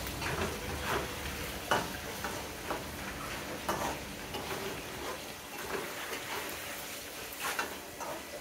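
Pork frying in a wok, with a spatula stirring and scraping against the pan in irregular strokes over a steady sizzle; one sharper knock of the spatula about a second and a half in.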